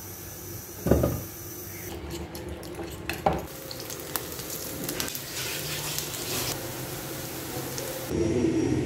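Masala-coated taro slices sizzling in hot oil in a frying pan. There are two sharp knocks of cookware, about a second in and just after three seconds, and a louder, lower sound takes over near the end.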